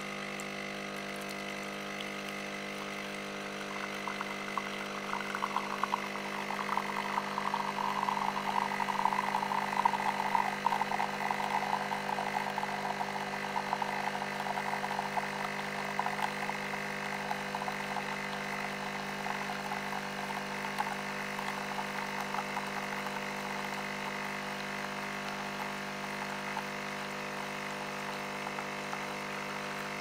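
Fully automatic coffee machine running with a steady mechanical hum. From about four seconds in, a crackly layer rises over the hum, is loudest around ten seconds and fades away by about twenty seconds, leaving the steady hum.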